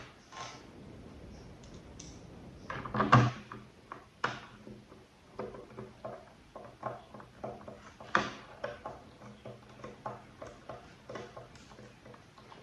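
Hard objects being handled: clicks and light knocks, with one louder clunk about three seconds in, then a run of small irregular clicks and taps.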